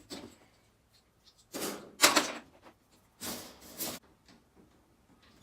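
Metal wire grids of a C&C cage being pulled apart and handled: a rattle ending in a sharp clank about two seconds in, then a longer scraping rattle a second later.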